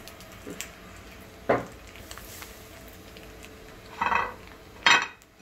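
Kitchen dishes and metal utensils clattering: a sharp knock about a second and a half in, then two louder clatters near the end.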